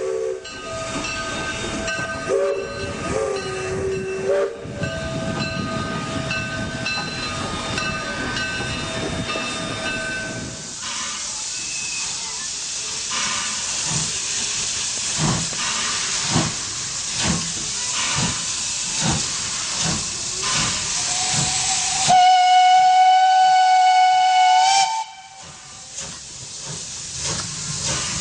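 Steam locomotive: hissing steam with exhaust chuffs about once a second, then one loud steady whistle blast of about three seconds. The first third holds a run of held tones that step up and down in pitch.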